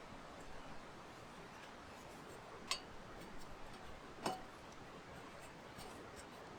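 Two sharp clicks about a second and a half apart, over faint hiss and scattered small ticks.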